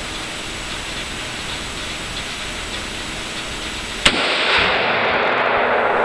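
Steady hiss, then a single sharp rifle shot about four seconds in, followed by a louder crackly hiss with a few sharp clicks.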